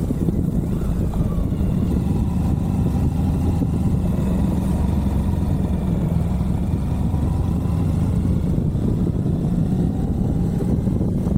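Suzuki V-Strom 1050XT's V-twin engine running steadily while the motorcycle is ridden, heard from onboard, with small rises and falls in pitch.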